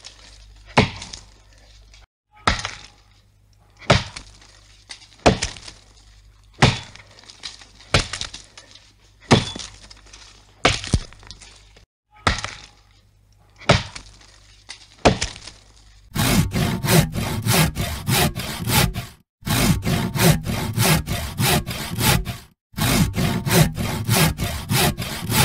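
Axe blows chopping into a large tree trunk: sharp woody strikes spaced a little over a second apart, which turn into a fast, dense run of strikes for the last third, broken by two short pauses.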